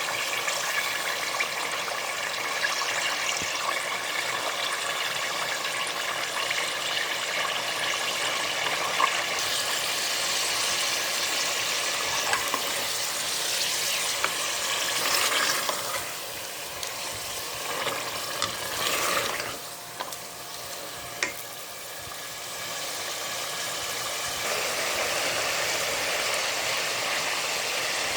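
Food frying in hot oil in a karahi, a steady sizzling hiss that eases off about twenty seconds in and then picks up again.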